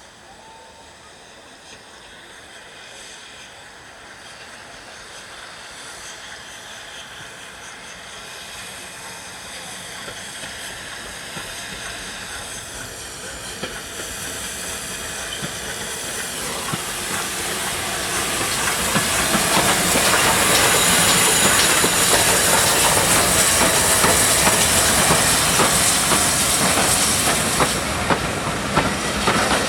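Steam-hauled train approaching and passing close, growing steadily louder for about twenty seconds with a hiss of steam. In the last ten seconds, as the train runs by, there is a rapid clatter of wheels over the rail joints.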